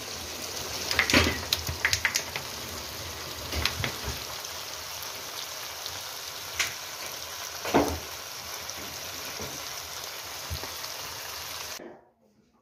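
Meat pieces for karahi gosht sizzling and frying in a hot karahi at the finished stage, a steady hiss with a few short clicks and knocks. The hiss cuts off abruptly near the end.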